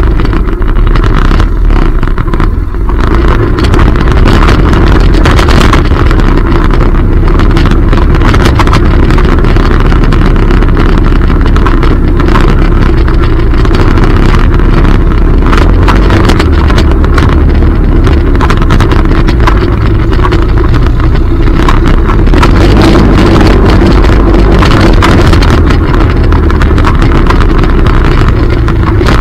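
ATV engine running steadily on the move over a rough dirt trail, with frequent clicks and knocks from the ride.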